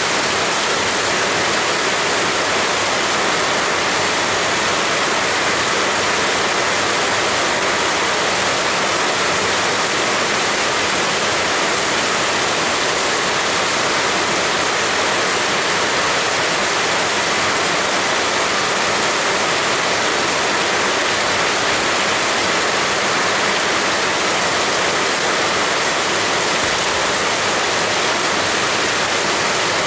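Heavy rain falling in a steady, dense hiss, with no changes or distinct drops standing out.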